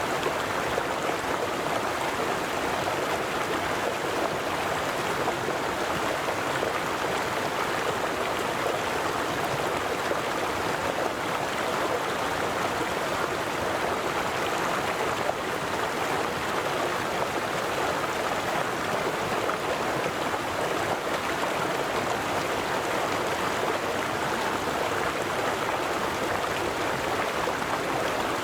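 River water flowing: a steady rushing babble with no pauses or changes.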